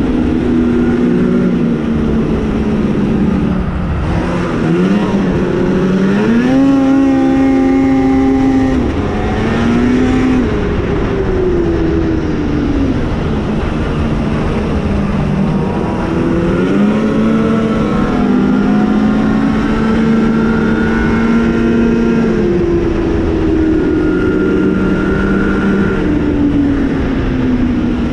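2021 Arctic Cat ZR 8000 RR snowmobile's two-stroke twin engine running under way, its pitch climbing and falling with the throttle: it rises about five to seven seconds in, holds, drops off near ten seconds, then climbs again around seventeen seconds and holds for several seconds before easing. A steady rush of wind and track noise runs underneath.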